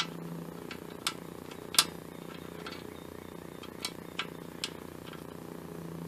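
A handful of short, sharp metallic clicks, the loudest nearly two seconds in, as a bolt is handled and turned in by hand against a lawn mower engine's metal parts. They sound over a steady low hum.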